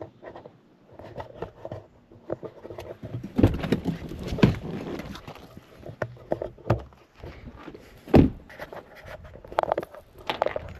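A pickup truck's driver door being opened and someone climbing out onto gravel: latch clicks, knocks and rustling handling noise, with one loud thump about eight seconds in.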